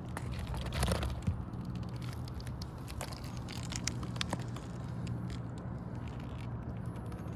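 Brittle asphalt roof shingles crackling and scraping as they are pried and lifted, with scattered sharp cracks and a noisier burst about a second in, over a steady low hum. The crackling is the sign of shingles too brittle to lift without breaking.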